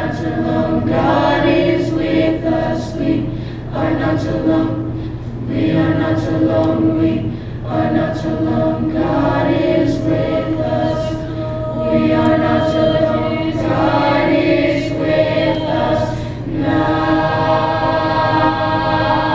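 High school choir singing a praise song in parts, the phrases swelling and easing every few seconds.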